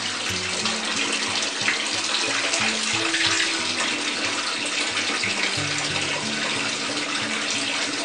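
Two streams of water falling from upright pipe outlets and splashing into the water of a shallow aquarium tank: a steady, even splashing rush. Faint background music with held notes runs underneath.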